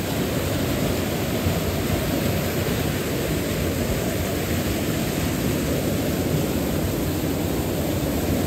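Fast stream rushing over rocks in white-water rapids: a steady, loud rush of water, loud because the water breaks over stones midstream.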